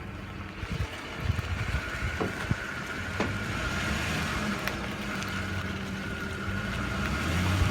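2005 Ford F-150 FX4 pickup rolling slowly while being steered, its engine humming steadily with a faint whine, and several short pops or knocks from the front end. This is the front-end pop that the owner is trying to diagnose: it is worst as the wheel returns to centre, and it persists after new upper and lower ball joints and upper control arms.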